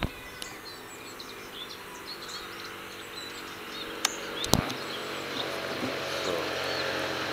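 Open-air countryside ambience with small birds chirping, two or three sharp clicks about four seconds in, and a steady low hum that builds slightly over the last couple of seconds.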